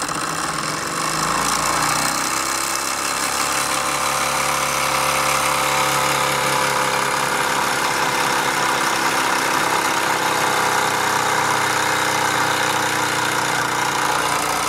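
Wilesco D14 model steam engine running with its added in-line regulator valve opened again: a rapid beat with a strong steam hiss, picking up speed over the first couple of seconds and then running fast and steadily.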